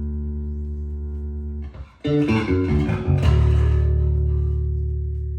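Fodera Emperor 2 Elite electric bass played solo. A sustained low note rings and slowly fades, then is cut off; about two seconds in comes a quick run of bright, percussive notes, ending on a long low note that rings and slowly fades near the end.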